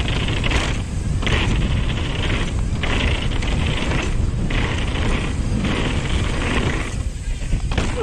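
Downhill mountain bike rolling fast down a dirt and gravel trail: a steady rumble of wind buffeting the microphone together with tyre and suspension noise, and a hiss that swells and drops about every second and a half.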